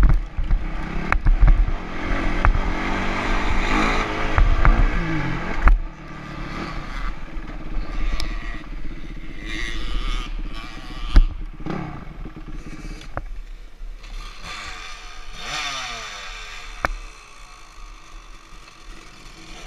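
Dirt bike engine running and revving on a ride, its pitch rising and falling, with knocks, clatter and sharp clicks from the bike moving over rough ground. Louder for the first six seconds or so, then quieter.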